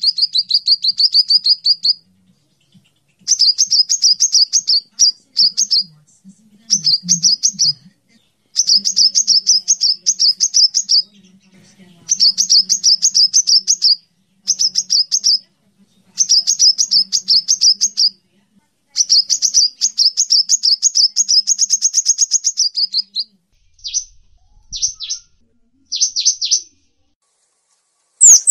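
Birdsong track mixing domestic canary song with cinereous tit (gelatik batu) and sunbird (kolibri) song: fast, high trilled phrases of one to two seconds, repeated with short pauses. Near the end come a few short single notes.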